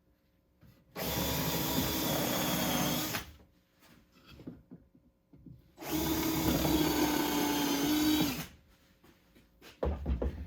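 Power drill driving wood screws into a wooden shelf, in two runs of about two seconds each with a pause between them. A few short knocks follow near the end.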